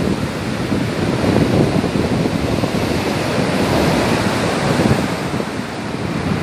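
Sea surf breaking close by and foam washing up the sand at the water's edge, a steady rushing of water.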